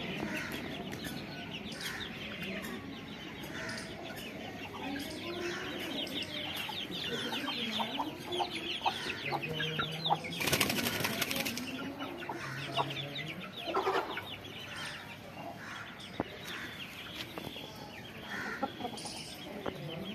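Aseel chickens in a yard, with scattered clucks and chirping. About ten seconds in there is a loud burst of wing flapping that lasts about a second.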